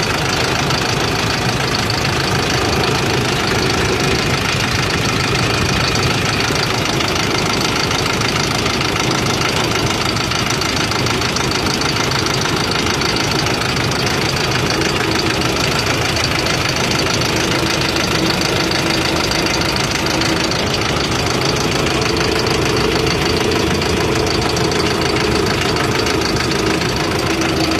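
Euro 4 engine running steadily at idle with a newly replaced injector fitted, after being hard to start.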